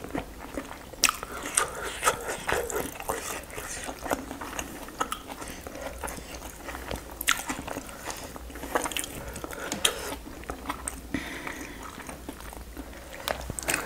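Close-up eating sounds: chewing and lip smacking, with many short, irregular wet clicks.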